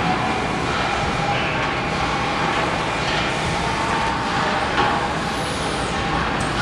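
Steady machinery noise of an LPG cylinder bottling plant, with a pneumatic valve-changing machine at work and a short knock about five seconds in.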